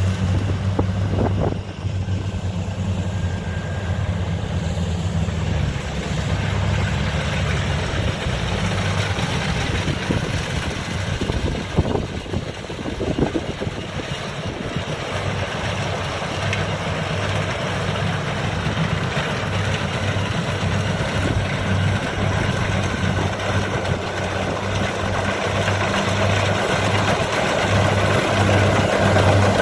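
Engine of rice-harvesting farm machinery running steadily, with a few brief knocks near the middle.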